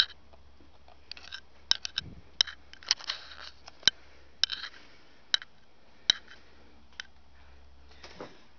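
Handling noise: about a dozen irregular sharp clicks and short scrapes over a faint low steady hum.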